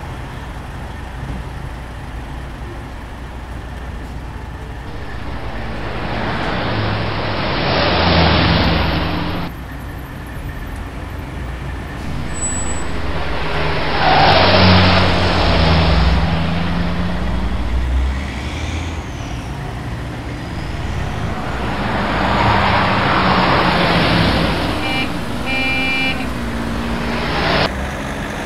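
Road traffic: a steady low engine rumble, with vehicles driving past in three swells, and a car horn beeping several short times near the end.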